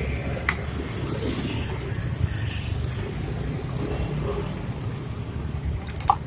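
Steady low rumble of passing road traffic, with a few sharp clicks of small tools being handled on a workbench near the end.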